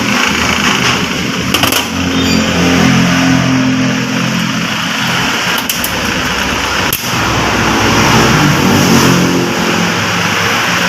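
A motor vehicle engine running, its pitch drifting up and down, with a few sharp clicks.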